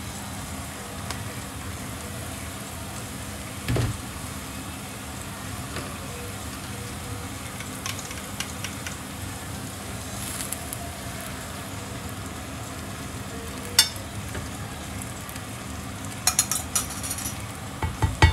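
Chanterelles sizzling in a frying pan, a steady frying hiss, with a utensil knocking and clacking against the pan: a dull knock a few seconds in, a sharp click later, and a quick run of clacks near the end.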